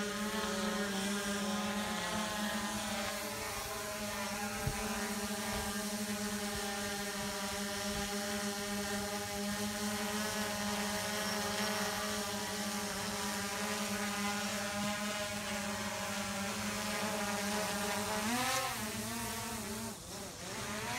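Quadcopter drone's propellers buzzing steadily in flight, one even pitched hum. Near the end the pitch briefly rises and falls as the drone changes speed.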